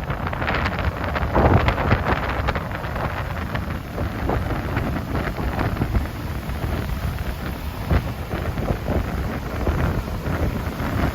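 Strong wind buffeting the microphone over the continuous wash of breaking ocean surf, with gusts swelling and easing. The surf is the large swell pushed in by a typhoon.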